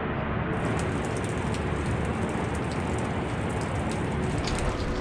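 Steady rush of falling water from Nevada Fall, an unbroken hiss with a deep rumble under it.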